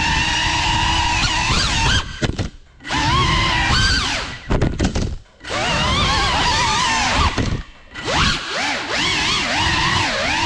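FPV drone's electric motors whining, the pitch rising and falling with the throttle, with three brief dips where the throttle is cut and picked up again.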